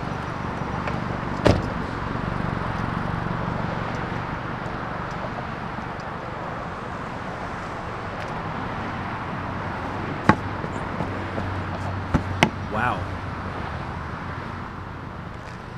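Steady car engine and road noise with a low hum, broken by a few sharp clicks or knocks about a second and a half in and again around ten and twelve seconds.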